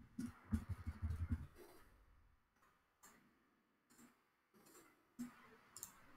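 Computer keyboard typing, a quick run of keystrokes in the first second and a half. Then about five faint, spaced-out mouse clicks.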